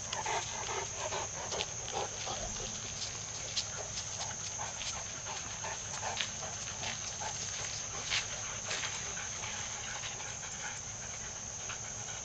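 A Labrador retriever breathing hard in short, irregular breathy pulses that thin out after about nine seconds, over a steady high chirring of crickets.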